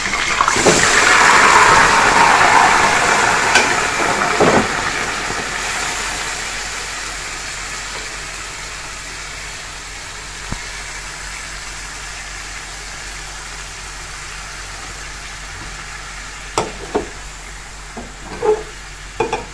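Marinated chicken pieces sizzling as they go into hot oil in an aluminium karahi. The sizzle swells over the first couple of seconds, then dies down over several seconds to a steady frying hiss. A few sharp clinks of a steel spoon against the pan come near the end.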